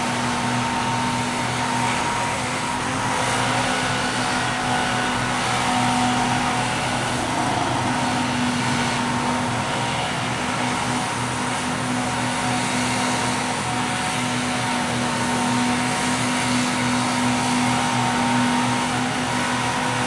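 Grapple truck's diesel engine running at a steady speed to drive the loader's hydraulics, a constant low hum, with cars passing on the street.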